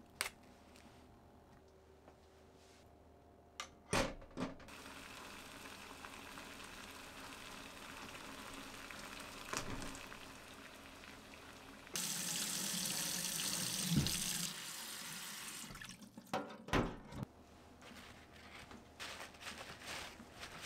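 Kitchen tap running into a sink, starting after a couple of knocks about four seconds in. The flow turns much louder for a couple of seconds past the middle, stops about sixteen seconds in, and is followed by a few light knocks and clatters.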